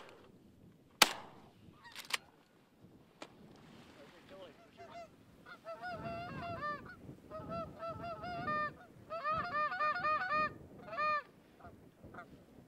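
Two sharp shotgun shots about one and two seconds in, the first the loudest. From about four seconds in until near the end, Canada geese honk in quick clusters of rising-and-falling honks.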